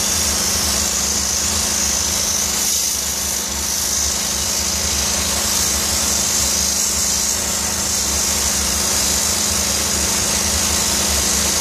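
DOFF steam cleaner at work: a continuous hiss of steam jetting from the lance onto stone over a steady low machine hum, dipping briefly about three seconds in.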